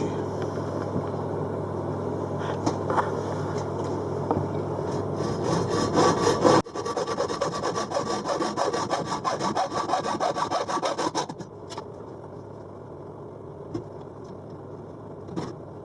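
Hacksaw cutting through a cabinet light rail with quick back-and-forth strokes; the sawing stops about eleven seconds in, leaving a few small knocks.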